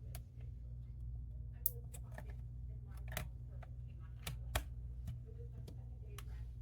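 Scattered small clicks and taps of laptop parts being handled as a cable is plugged into a small board and the board is set back in place, about seven in all, over a steady low hum.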